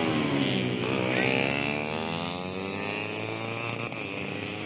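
150cc four-stroke underbone race motorcycles running at high revs; the engine pitch falls in the first second as a bike passes, then climbs again as the engines accelerate.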